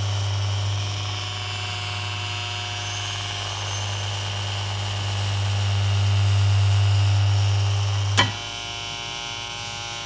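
Steady deep electrical hum of the energised levitation coils, with the whirr of a small electric motor spinning a propeller (air screw) that pushes the floating aluminium plate. About eight seconds in a sharp click sounds and the deep hum drops away, leaving fainter steady whirring tones.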